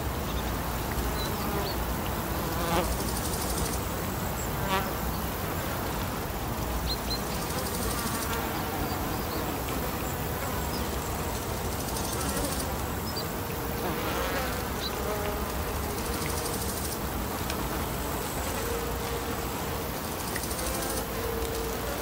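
Insects buzzing over a steady outdoor background hiss, with the buzz stronger in the second half, and a few short bird chirps scattered through.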